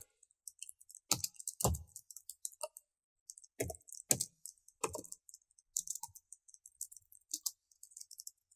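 Computer keyboard typing: quick, irregular key clicks, several keystrokes landing heavier with a low thud, and a short pause about three seconds in.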